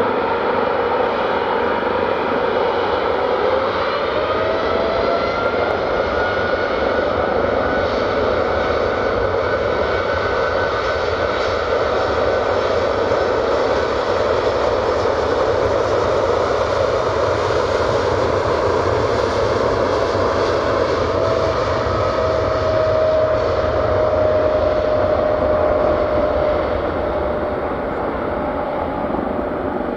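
Cargolux Boeing 747-8F's four GEnx jet engines at take-off power: a steady loud roar with a whine that rises in pitch a few seconds in. Later the whine slowly falls in pitch and the roar eases near the end as the freighter moves away.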